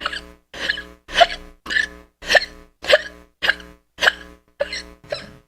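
A person hiccuping in a fast, even run, about two short sharp hiccups a second.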